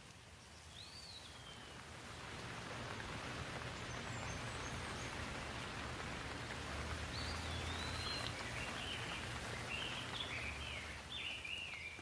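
Rain falling outdoors, its steady hiss swelling over the first few seconds and easing off near the end. A bird chirps once about a second in, then several times over the last few seconds.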